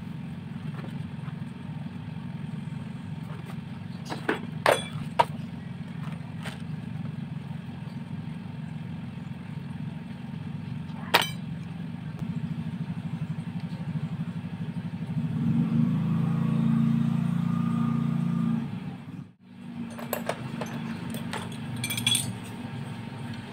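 Electric drill running a hole saw, a steady low hum with a few sharp clicks. It gets louder for a few seconds near the end, then cuts out briefly and starts again.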